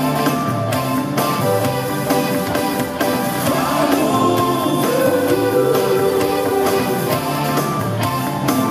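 Live band music heard over an arena PA from the audience, with electric guitar and a male singer whose voice bends through a phrase in the middle.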